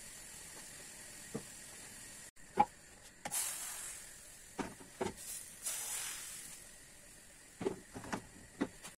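Pancake batter sizzling as it is poured into hot pancake pans on a gas stove: two surges of hissing that fade over a second or so each, over a steady low frying hiss. Scattered clicks and knocks of the pans, ladle and spatula against the pans and the stove grate.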